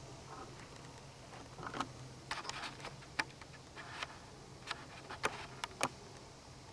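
Faint, irregular clicks and light taps, about a dozen spread over several seconds, over a low steady hum.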